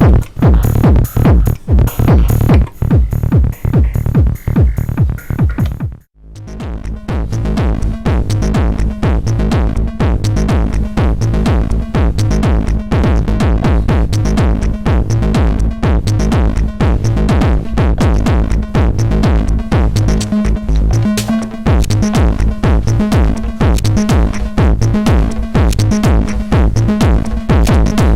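Korg ESX sampler groovebox playing a techno-style pattern with a drum-machine beat, run through a compressor-limiter. About six seconds in it cuts out briefly, then a new pattern swells back in over a second or two with a steady bass note under the beat.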